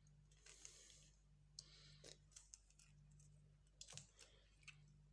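Faint scraping and light clicks of a metal spoon scooping the pulp out of a lemon half into a glass.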